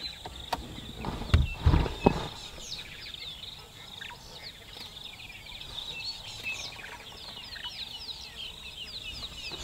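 Wild birds chirping, a dense run of short, high, quickly falling calls. A few heavy low thumps come about one and a half to two seconds in.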